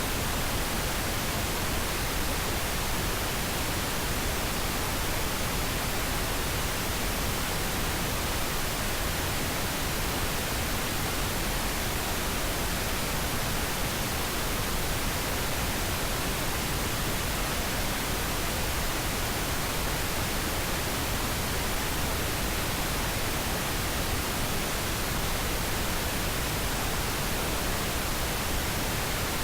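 Pink noise: a steady, unchanging hiss spread evenly across all pitches, with no tones or events.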